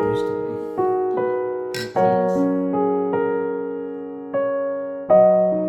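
Slow background piano music: single notes and chords struck about once a second and left to ring and fade.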